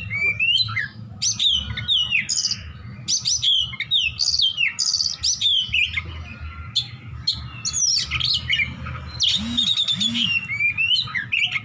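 Oriental magpie-robin (kacer) singing a fast, varied 'besetan' song: sharp whistles, down-slurred notes and rapid trills following each other almost without a pause, with 'isian', phrases learned from other birds.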